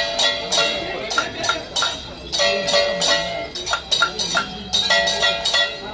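Traditional Taiwanese temple-procession percussion: gongs and cymbals struck in a quick, steady rhythm, several strokes a second, with metallic ringing between the strokes.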